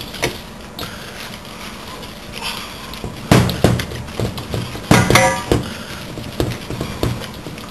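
Hands kneading ground beef-and-pork mince in a stainless steel mixing bowl, the mixture being pressed and ground against the bowl's side. Several sharp knocks about three to five seconds in, as the metal bowl is bumped, some ringing briefly.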